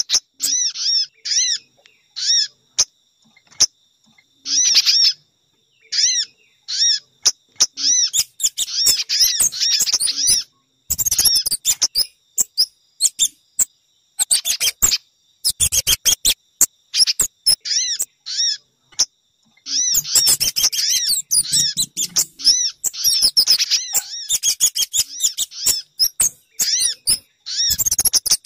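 Bird-lure recording of sogon, pijantung (spiderhunter) and kemade calls: bursts of quick, repeated high chirps broken by short pauses, with sharp clicking notes between them.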